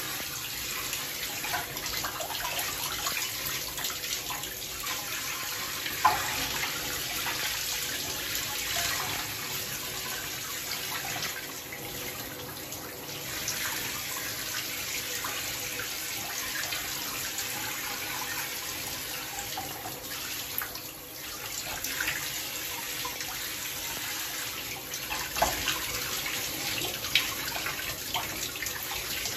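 Bathtub faucet running steadily, its stream splashing over feet and into the tub water, with a few brief louder splashes.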